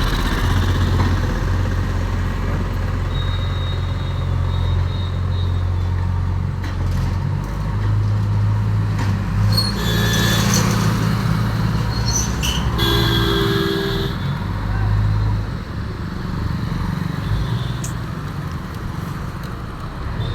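Diesel engine of a JCB backhoe loader running steadily with a deep hum, with a couple of short horn toots about halfway through.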